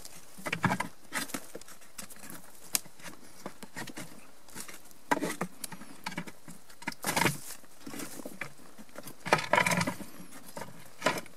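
Irregular scraping, clicking and rustling from hand and tool rummaging among stones, earth and moss in a hollow under a boulder, prying at a wedged bone. The louder scrapes come in spurts, about a second in, then near the middle and again near the end.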